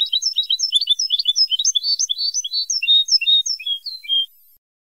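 European goldfinch song on a Moroccan 'Ceuta-style' tutoring tape used to teach captive goldfinches: one fast phrase of high twittering notes that stops abruptly near the end.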